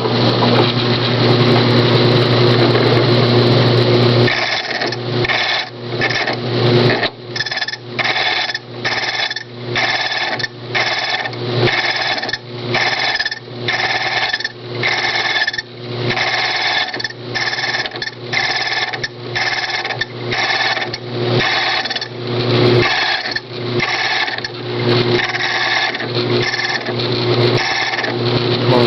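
Ilco key duplicating machine running: its motor hums steadily while the cutter wheel cuts an SC1 key blank. From about four seconds in, a harsh grinding rasp comes about one and a half times a second as the carriage is worked along the key, tracing the original's bitting into the blank.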